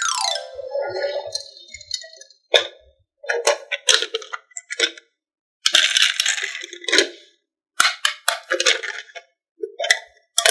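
Marbles rolling and clattering down a HABA wooden marble run in short bursts, with sharp clicks as they drop and knock against the track. A falling whistle-like glide comes in the first second.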